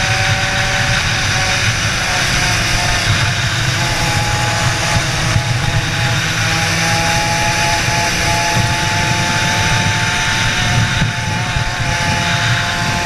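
Racing kart engine at speed, recorded on board: a high, steady engine note that drifts up and down a little through the corners, over wind rush on the microphone.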